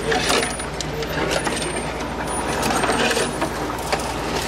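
Brush branches scraping, scratching and snapping along the body and windshield of a Jeep Wrangler as it crawls through dense growth, over the steady low running of its engine.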